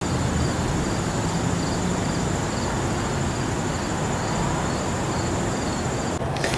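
Insects calling: a steady high-pitched trill with a softer chirp pulsing about twice a second, over a low background rumble. It stops abruptly near the end.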